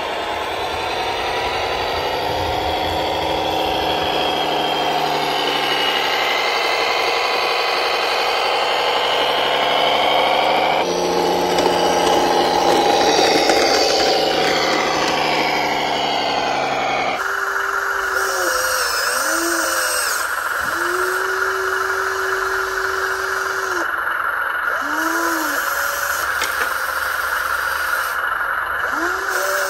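Whine of a radio-controlled model's small electric motor and gearing running under load, rising and falling in pitch. Partway through it gives way to a steady hiss with several short whistle-like tones.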